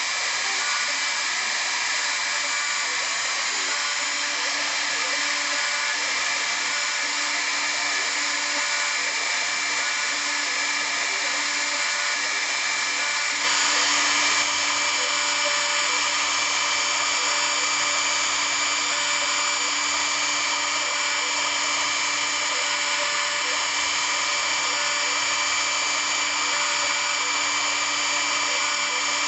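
Hobby CNC router spindle running with a steady high whine while it mills wood, the cutting noise stepping slightly louder and changing in tone about halfway through.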